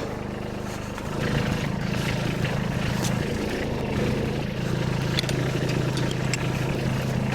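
Kubota B2601 compact tractor's three-cylinder diesel engine running steadily, getting louder about a second in, with a few light clicks.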